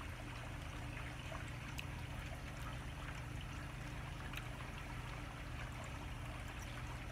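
Steady background hum and hiss, with a few faint ticks.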